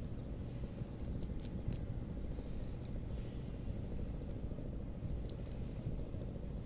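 Soft scattered clicks and crackles of wet weeds and debris being picked out of a fishing net by hand, over a steady low rumble.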